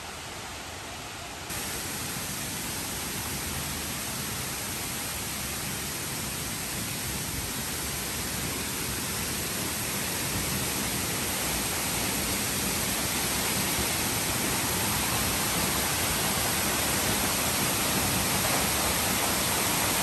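Steady rushing of a waterfall, a full hiss of falling water. It steps up suddenly about a second and a half in, then grows slowly louder.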